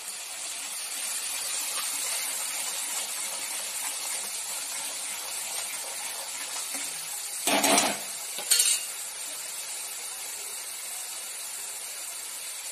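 Masala paste and ground spices sizzling in hot oil in a steel kadhai while being stirred with a spoon. A little past the middle come two sharp clinks about a second apart, the spoon striking the pan.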